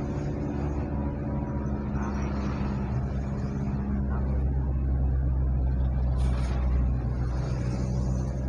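A car driving on a city road: a steady low hum of engine and road noise, with the engine's tones fading about four seconds in. A short hiss comes a little after six seconds.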